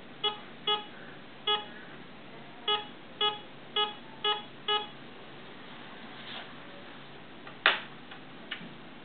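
Homemade IDX Pro metal detector giving short target beeps, all of the same pitch, eight of them at uneven spacing over the first five seconds as metal is detected. A sharp click comes near the end.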